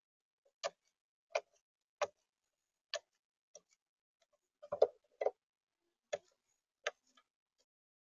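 Eurasian magpie pecking at grain in a plastic camera bird feeder tray: about nine sharp taps of its bill, a little under a second apart, with the loudest cluster a little past halfway.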